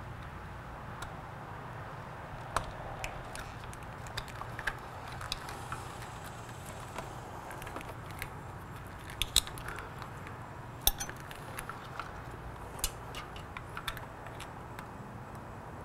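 Irregular small clicks and clinks of a flathead screwdriver prying at a plastic wiring connector to free the ignition switch plug, over a steady low hum. A few sharper clicks stand out past the middle.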